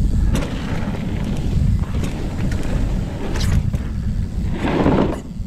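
Wind buffeting a chest-mounted action camera's microphone on a mountain bike running downhill, over tyre noise on the dirt trail and a few sharp knocks and rattles from the bike.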